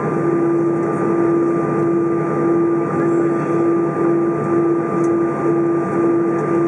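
Steady cabin noise inside an Airbus A320 on the ground with its engines running: an even rush with a constant droning hum that flickers briefly about twice a second in the second half.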